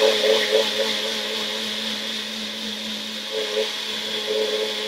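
Presto personal bullet-style blender running steadily, its jar held pressed down on the motor base while it blends a green vegetable smoothie.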